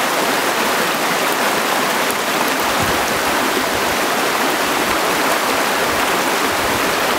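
Steady rush of a small mountain stream spilling over rocks and little waterfalls.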